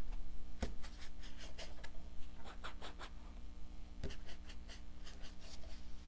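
Paper edges being dabbed and rubbed with an ink pad, making a run of short, dry scuffing strokes. Two soft knocks come about half a second in and about four seconds in.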